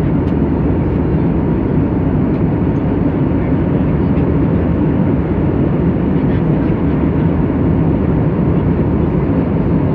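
Steady rumbling hiss of an airliner's cabin at cruise: engine and airflow noise heard from inside the passenger cabin, with a faint steady tone underneath.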